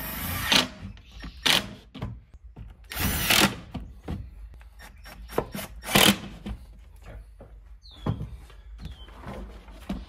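Milwaukee M12 cordless impact driver running in a few short bursts, driving screws into plywood, the longest burst about three seconds in. Knocks and clatter from handling the board come in between.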